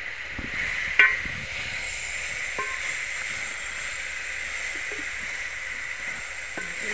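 Pumpkin leaves sizzling over tomatoes and onions in an aluminium pot, stirred with a wooden spoon, with a steady hiss throughout. The spoon knocks sharply against the pot once about a second in, with a few lighter taps later.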